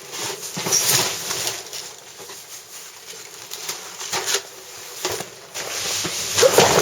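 Rustling, scuffing and scraping of heavy cardboard boxes of books being handled and shifted, louder about a second in and again toward the end.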